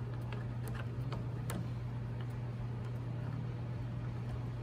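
Faint scattered clicks and light taps of a hand fitting bolts behind a motorcycle windshield bracket, over a steady low hum.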